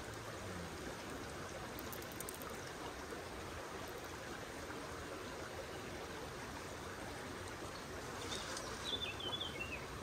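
Shallow mountain river flowing steadily over a gravel and stone bed, a continuous rushing babble. Near the end a bird gives a short, quick chirping call.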